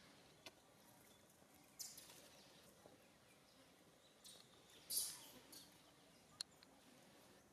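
Quiet outdoor background broken by a few brief, faint rustles and crackles of dry leaves as macaques move over a leaf-littered forest floor, the loudest about five seconds in.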